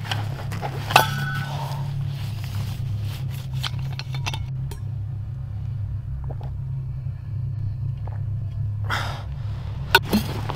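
A stainless steel water bottle clinks sharply with a short ringing tone about a second in, and clinks twice more near the end as its cap is handled, over a steady low rumbling drone.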